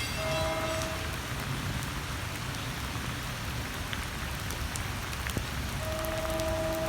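Steady rain falling, with a distant train horn sounding a short blast just after the start and a longer held blast from about six seconds in.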